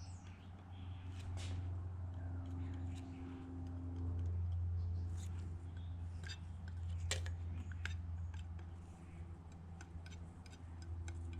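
Light metallic clicks and scrapes of a feeler-gauge shim and a machined straight edge being slid and set down on a bare engine deck surface, over a steady low hum.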